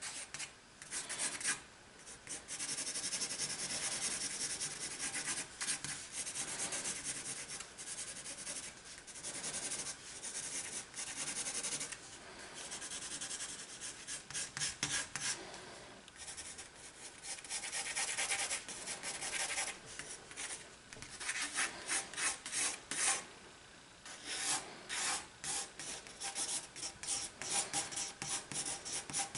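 Pencil scribbling and shading on sketchbook paper, a dry scratchy rubbing. Long steady stretches alternate with quick back-and-forth strokes and short pauses, and the strokes come faster and choppier in the last several seconds.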